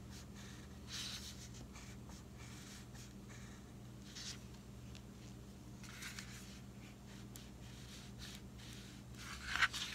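Wax crayon rubbing on paper in short coloring strokes. The strokes are faint, with a few louder ones about a second in, around the middle and near the end, over a low steady hum.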